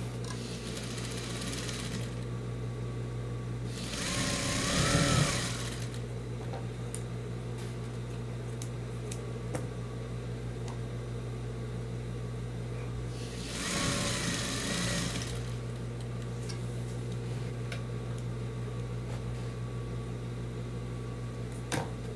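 Electric sewing machine stitching through layers of fabric in three short spurts of about two seconds each. Its motor whine rises and falls with each spurt, over a steady low hum.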